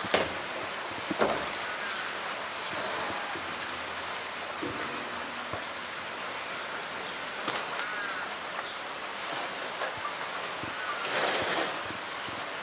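Hollow knocks of a blue plastic drum being handled by a polar bear, the loudest two about a second apart near the start, with fainter knocks and a brief rubbing noise near the end. A steady high-pitched cicada chorus runs underneath.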